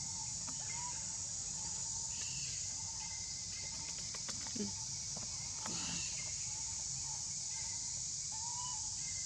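Outdoor ambience: short rising chirps recurring every second or so over a steady high-pitched hiss, with a few faint knocks around the middle.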